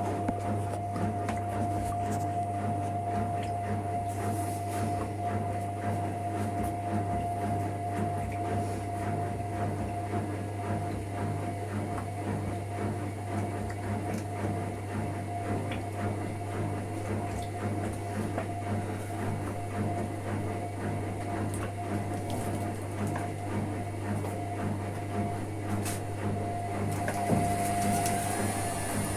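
Hotpoint Ariston ARSL100 washing machine running with a steady hum and a constant higher tone over a busy mechanical rattle; near the end a whine rises in pitch.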